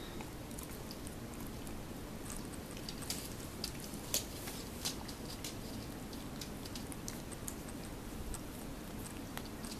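Keeshond dog chewing a treat: scattered small clicks and crunches over a steady low room hum.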